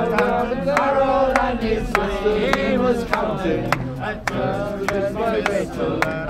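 A group of men singing an Irish folk tune together to a strummed acoustic guitar, with a sharp regular beat about every half second.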